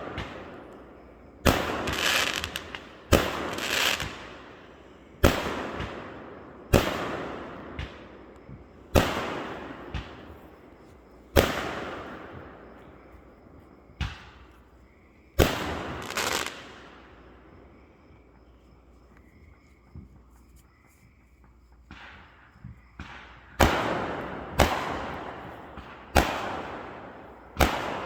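Aerial fireworks bursting, a sharp bang every second or two with each one trailing off slowly. Past the middle there is a lull of several seconds, then a quicker run of bangs near the end.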